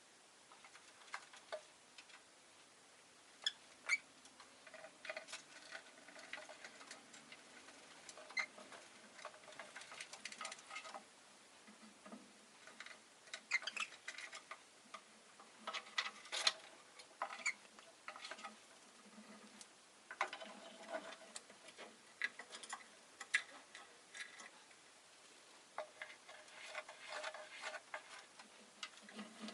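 Rosy-faced lovebirds chattering quietly: scattered soft chirps mixed with many small clicks and ticks, faint throughout.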